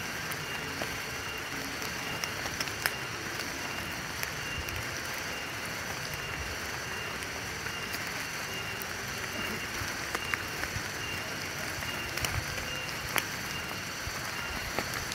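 Steady outdoor noise with a high, even drone, broken by scattered light taps and clicks from footsteps on a leaf-littered forest trail.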